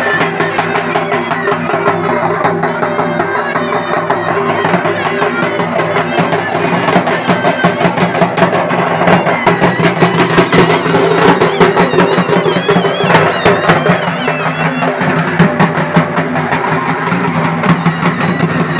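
Music with fast, dense drumming over steady held low tones.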